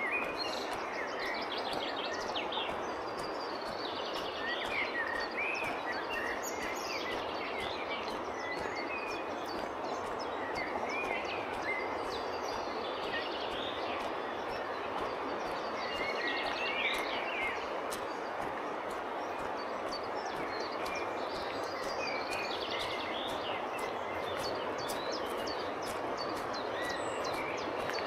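Steady rushing of the Iller river running high in flood. Birds chirp and sing over it every few seconds.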